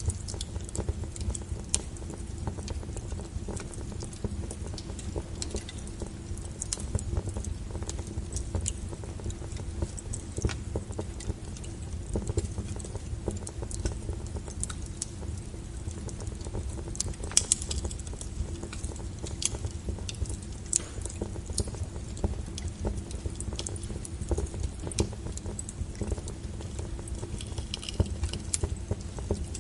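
Wood fire crackling: irregular sharp pops and snaps over a steady low rumble of flame, with one louder pop about halfway through.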